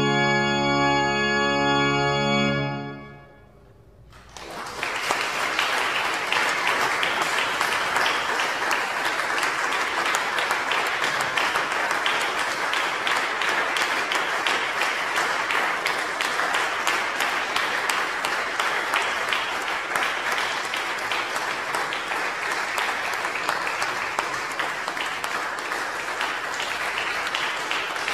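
Pipe organ holding a full final chord, released about two and a half seconds in, its sound dying away in the church's reverberation. Audience applause starts about four seconds in and carries on steadily.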